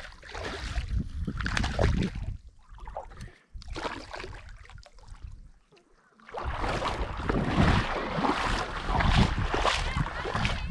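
A hooked largemouth bass thrashing and splashing in shallow water as it is reeled to the bank: short bursts of splashing at first, then a longer spell of splashing for the last few seconds. Wind buffets the microphone with a low rumble.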